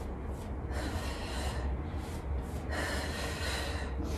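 A woman breathing hard from exercise exertion, a few long breaths in and out.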